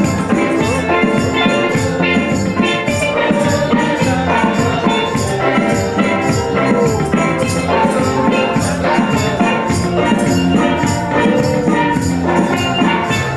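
Live gospel music from a band, with drums and percussion keeping a steady beat under sustained instrumental notes.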